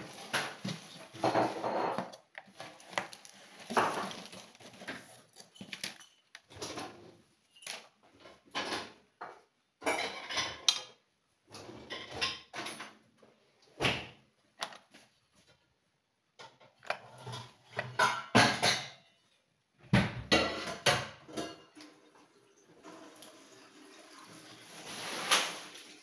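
Irregular handling sounds: a cardboard box being cut open and unpacked, with rustling and scraping, and knocks and clinks of metal hand tools being handled on a table.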